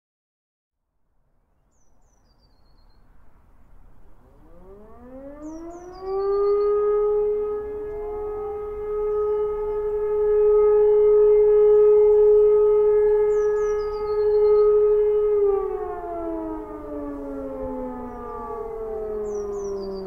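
Two E57 electro-mechanical civil-defence sirens winding up a couple of seconds apart, holding a steady tone together, then winding down with falling pitch about three-quarters of the way through, in a monthly test alarm. A small bird chirps briefly a few times above the sirens.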